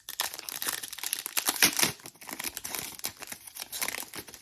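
Trading-card pack wrappers crinkling and tearing as they are handled and ripped open, a dense crackle that is loudest a little under two seconds in.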